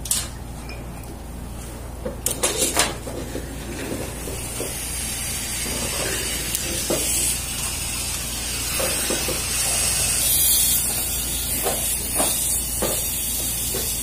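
Metal dental instruments clink against the tray about two seconds in, then a steady high hiss from the dental equipment builds up and holds, over a low machine hum.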